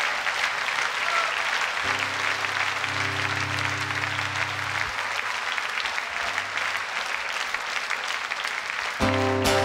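Concert audience applauding steadily. About two seconds in, a low chord is held for about three seconds, and near the end the band starts playing with a sudden chord.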